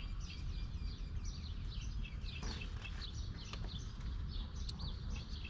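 Small birds chirping repeatedly over a low, steady background rumble.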